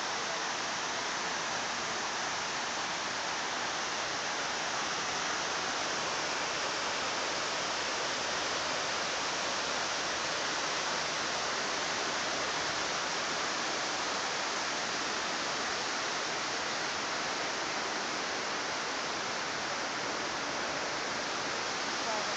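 Steady rush of water pouring down the walls of the 9/11 Memorial's reflecting-pool waterfalls into the pool.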